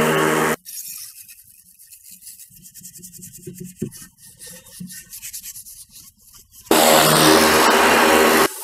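Electric pressure washer blasting a cast-aluminium oil pan in a plastic tub, a loud hiss over the steady hum of its pump motor. It cuts off about half a second in, giving way to much quieter scrubbing strokes as the oil pan is scrubbed by hand, and the pressure washer comes back loud for the last two seconds or so.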